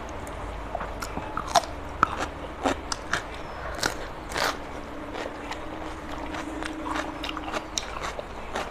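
Close-up biting and chewing of raw cucumber slices: irregular crisp crunches and wet mouth clicks, over a faint steady hum.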